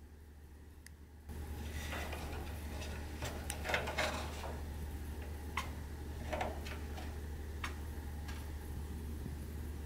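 A chinchilla making small sounds in its cage: scattered light clicks and taps, a cluster of them about three to four seconds in, over a steady low hum.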